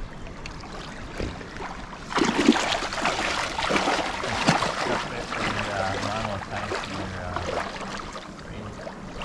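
Legs splashing through shallow seawater while wading out, starting about two seconds in with a run of quick sloshes. A low hum joins briefly in the middle.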